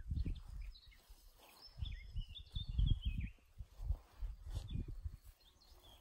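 Wind buffeting the microphone in low, uneven gusts, with a songbird singing a short warbling phrase about two to three seconds in.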